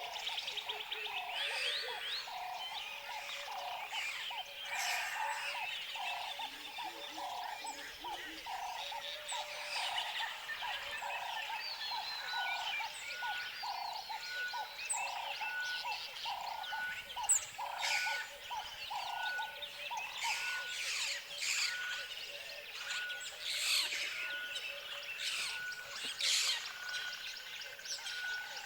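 Tropical forest ambience: a dense chorus of many birds chirping and whistling at once. Under it, a lower call repeats about twice a second through the first half, and a short high note repeats about once a second in the second half.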